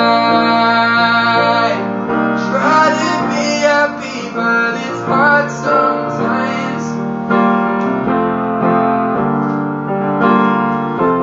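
A male voice singing over upright piano accompaniment: a long held note ends a couple of seconds in, then shorter phrases follow over the piano chords.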